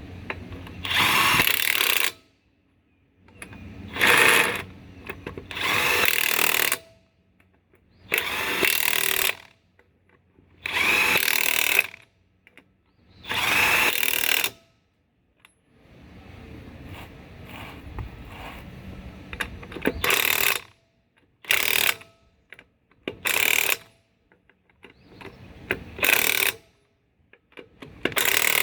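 Handheld power tool run in about a dozen short bursts of a second or so each, with pauses between them and a longer, quieter run partway through, as used on a trailer's wheels during a tyre change.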